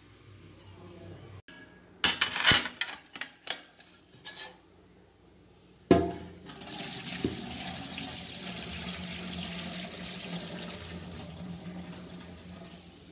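Metal cooking vessel clattering and knocking for a couple of seconds, then water gushing into a sink for about six seconds, slowly fading near the end.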